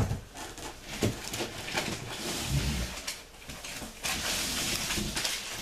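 Hands rummaging through a cardboard box of wrapped gift packages and packing filler: rustling, crinkling and light knocks, with a few low bumps about halfway and a longer burst of rustling near the end.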